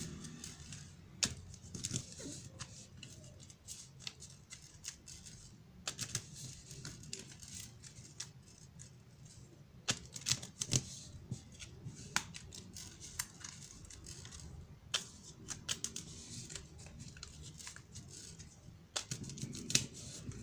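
A deck of baralho cigano (Lenormand) cards being shuffled by hand: papery rustling with sharp card snaps and clicks that come in irregular clusters.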